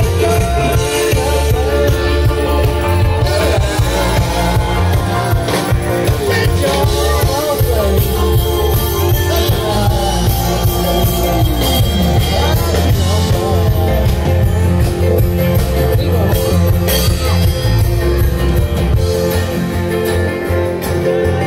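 Live band playing loud amplified music with a singer over a steady bass line.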